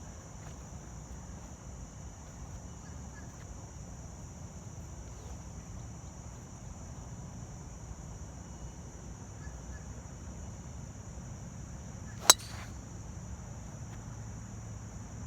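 A single sharp crack of a golf club striking the ball on a tee shot, about twelve seconds in, over a steady high-pitched drone of insects.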